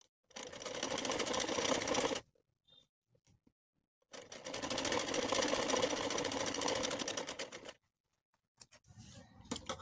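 Sewing machine stitching through fabric laid over buckram, running in two stretches of about two and three and a half seconds with a pause between. A few faint clicks follow near the end.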